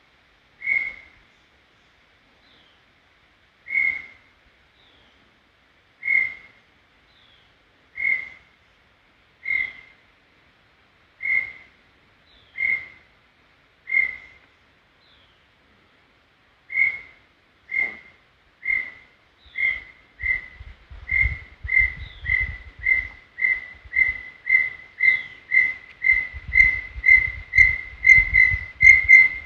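Brown tinamou singing. Single clear whistled notes come about two seconds apart, then speed up and grow louder into a rapid run, edging up in pitch toward the end.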